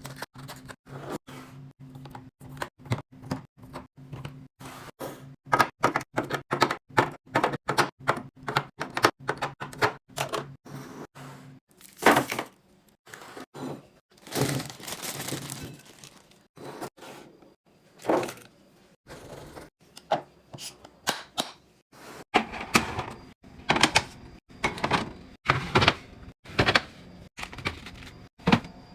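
Restocking sounds: a rapid run of clicks, taps and knocks as items and containers are handled and set down, with a longer crinkling rustle of packaging in the middle. A low steady hum sits under the first part and stops about twelve seconds in.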